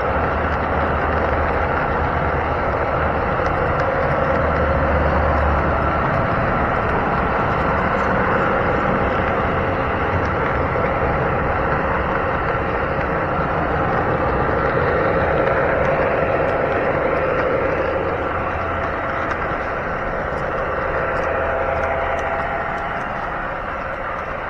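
O scale model train running on its track: steady rolling of the wheels on the rails with the whine of the locomotive's motor, heard close up from a camera riding in a gondola car.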